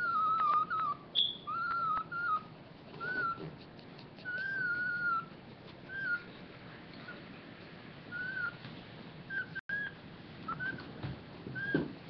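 Pomeranian crying while nursing: a string of short, high, thin whimpering squeals, about a dozen, some arching up and down, one drawn out for about a second.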